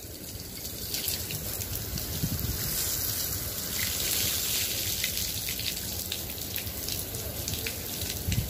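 Water jetting from a hose pipe onto the glass of solar panels: a steady gushing splash with a fine patter of droplets landing on the panels.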